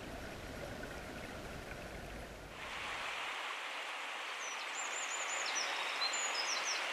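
Low underwater rumble of flowing river water, changing about two and a half seconds in to the steady rushing of a river heard above water, with small birds calling in short high chirps and trills from about four seconds in.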